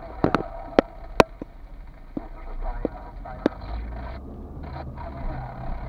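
Car cabin noise while driving slowly: a steady low engine and road rumble, with a series of sharp irregular clicks, most of them in the first three seconds.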